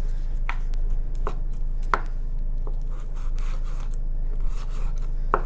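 Knife cutting up raw chicken, knocking a few times, sharp and short, roughly a second apart, over a steady low hum.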